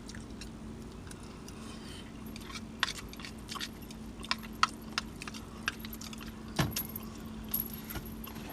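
Close-up eating sounds: chewing and lip smacking on a mouthful of garlic chicken pasta, heard as scattered sharp clicks, over a steady low hum.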